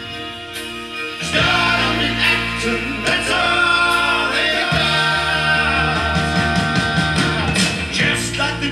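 A vinyl record playing on a Dual 1245 turntable fitted with a Shure V15 Type III cartridge, heard through the hi-fi speakers: a song with singing over a band, getting louder about a second in.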